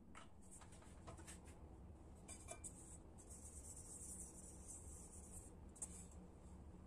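Faint rubbing and rustling of a paper towel wiping the inside of a thin wok: a few light clicks, then a soft steady hiss of rubbing for a few seconds.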